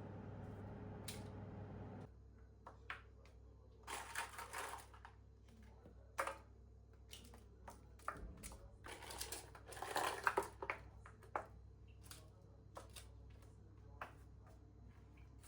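A steady low hum that stops about two seconds in, then scattered clicks, light knocks and short bursts of rustling or crunching, as of objects being handled.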